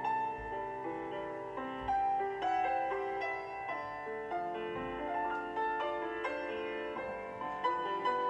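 Solo piano music for ballet barre exercises, a steady flow of notes and chords, played from a loudspeaker.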